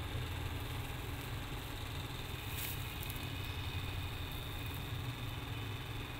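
Mother cat purring, a steady low rumble, while she licks and nurses her kittens, with a brief rustle about two and a half seconds in.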